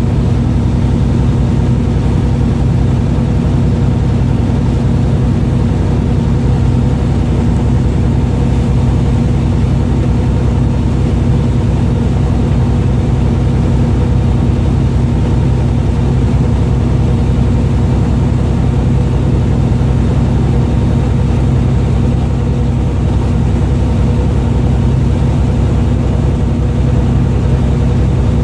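Fishing boat's engine running steadily with a deep, even hum, heard on board.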